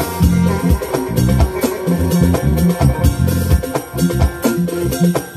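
Music with a steady drum beat and a plucked or bowed string lead, played loud.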